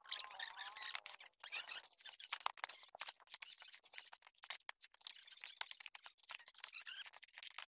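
Coconut husks being torn off by hand on a husking stake: dry fibrous ripping and crackling, many small scratchy snaps close together.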